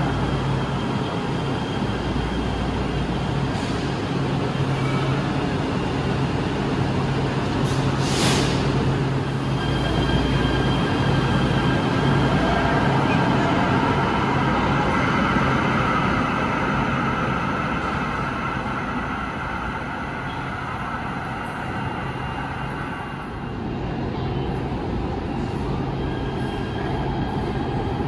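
LA Metro light rail train running in an underground station: a steady rumble with a low hum, and a brief hiss about eight seconds in.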